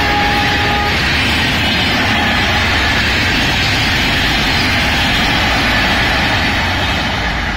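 Passenger coaches of the Shatabdi Express passing at speed, a loud steady rush of wheels on rail. A thin high tone stops about a second in, and the noise eases off near the end as the train goes by.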